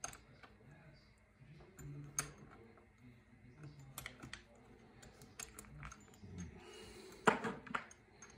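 Scattered light metal clicks and scrapes of a folding hex key tool working the bolts on a telescope's dovetail plate, with a louder clatter about seven seconds in.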